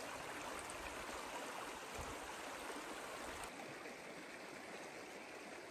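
Shallow rocky creek running over stones: a steady rush of water.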